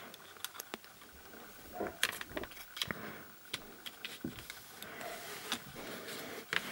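Small sharp clicks and soft scraping of a hard plastic charger housing being handled as its circuit board is slid out of the case.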